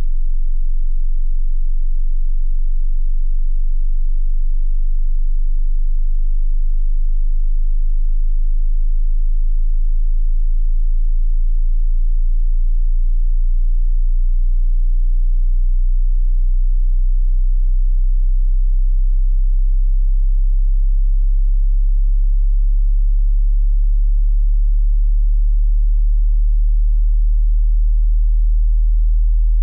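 Hearing-test pure sine tone at a very low pitch, steady in loudness and creeping slowly upward in pitch: the low end of a frequency sweep.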